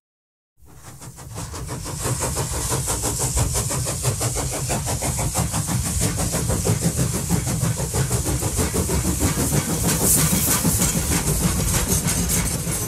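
Model train running on the layout track: rapid, steady wheel clicks over the rail joints with a low rumble underneath. It fades in about half a second in, after a brief silence.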